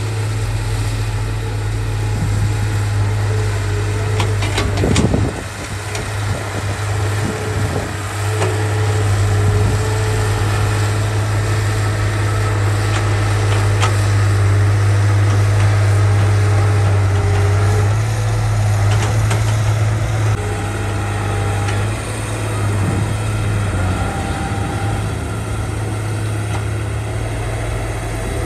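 Diesel engine of a heavy earthmoving machine running with a steady low drone, with a few knocks and clanks over it, the loudest about five seconds in.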